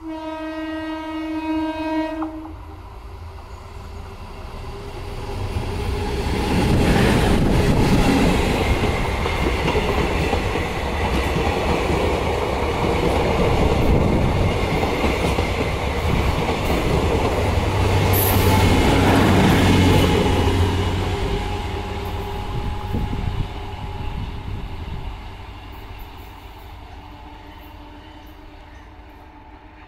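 DEMU (diesel electric multiple unit) train sounds a single steady horn note for about two seconds, then approaches and runs close past, its wheels clattering over the rails. The sound builds after a few seconds, stays loud for about a quarter of a minute, then fades as the train moves away.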